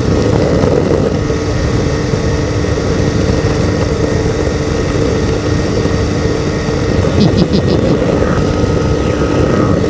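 Ultralight aircraft's two-stroke engine and propeller running steadily at cruise power, with wind rush over the airframe.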